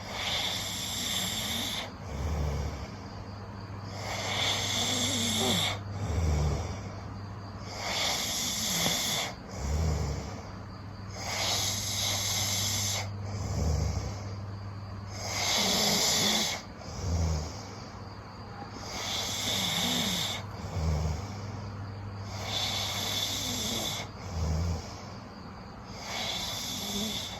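Loud snoring of someone sound asleep, one rasping breath about every three and a half to four seconds, about seven in all, over a steady low hum.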